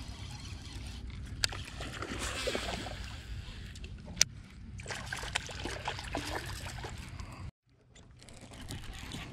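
Steady low rumble of wind and water lapping around a small jon boat, broken by two sharp clicks, the second louder. The sound cuts out for a moment near the end.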